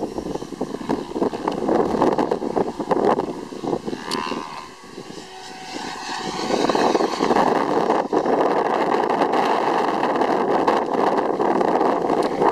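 Mikado Logo 550 electric RC helicopter flying 3D aerobatics: rotor blades whooshing over a steady motor and gear whine. The sound swells and fades with the manoeuvres, drops quieter about four to six seconds in, then comes back louder.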